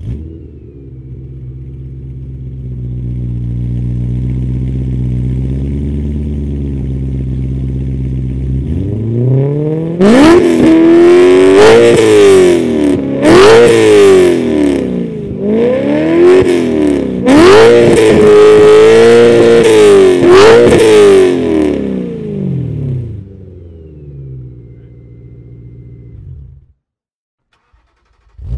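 BMW E92 M3's 4.0-litre V8 breathing through an R1 Motorsports custom full exhaust: it idles steadily, then is revved repeatedly in quick blips, one held high for a couple of seconds, before dropping back to idle. The sound stops abruptly near the end.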